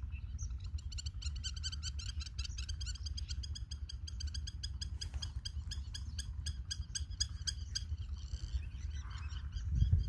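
An animal calling in a fast, even series of short, high chirps, about four or five a second, which turns looser near the end. A steady low rumble runs underneath.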